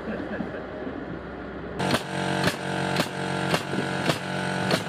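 Pneumatic nail gun driving nails into an OSB wall panel: six sharp shots about half a second apart, starting nearly two seconds in, over a steady mechanical hum.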